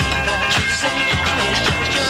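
A pop song playing on FM radio, with a steady drum beat.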